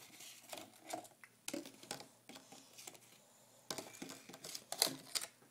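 A toddler's hands tapping and rubbing on a plastic high-chair tray: scattered light taps and knocks, busiest in the last second and a half.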